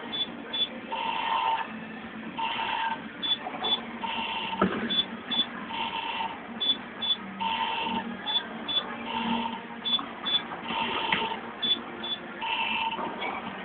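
Hot Spot slot machine running through its free Action Games. Each quick game ends in a 100-credit win, and its electronic beeps and short jingle repeat about every second and a half to two seconds. There is a single sharp click about four and a half seconds in.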